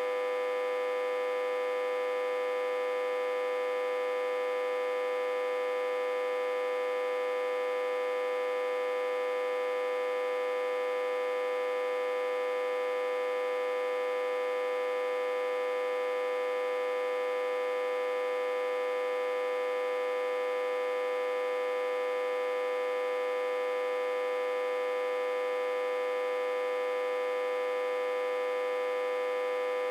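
Autotransformer humming steadily: one unchanging, buzzy electrical tone with many overtones, driven at about 60–80 V while reverse-connected to a step-down transformer.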